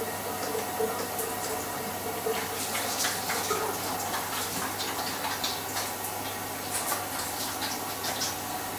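Siemens semi-integrated dishwasher taking in water at the start of its intensive programme: a steady hiss of water running in over a low hum. Light ticks and splashes join in from about two seconds in.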